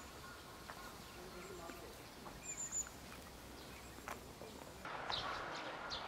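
Faint outdoor ambience with a small bird giving a short, high trilled chirp about two and a half seconds in. From about five seconds in, the background grows a little louder, with more scattered high chirps.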